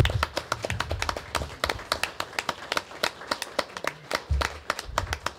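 Applause from a small group: many separate hand claps, each heard distinctly, rather than a roar, with a few low thuds beneath.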